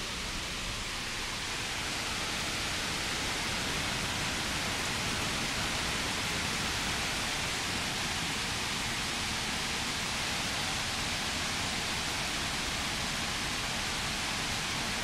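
Hurricane wind and rain in the woods: a steady, even rush that gets slightly louder about two seconds in.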